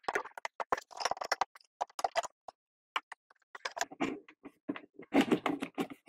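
Hands handling electrical cable and a wooden bench: scattered light clicks and taps with bursts of rustling, the yellow Romex cable scraping as it is pulled through the plastic old-work box near the end.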